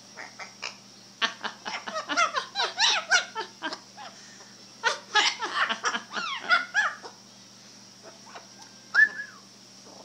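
Yellow-crowned Amazon parrot making two bursts of rapid chirps, whistles and squawks, each a couple of seconds long, then a single rising-and-falling whistle near the end.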